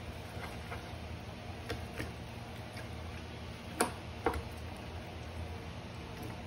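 A hand squeezing and turning slices of beef in a wet marinade on a ceramic plate: scattered soft, wet clicks, with two louder ones a little before and after the middle. A low steady hum lies underneath.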